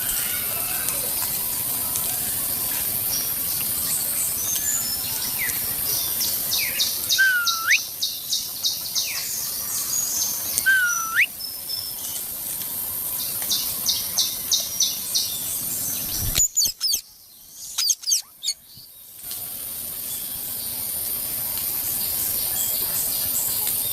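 A pet parrot calling: runs of quick chirps at about four a second and two whistles that dip and then sweep sharply upward, over a steady hiss. The sound cuts out briefly past the middle.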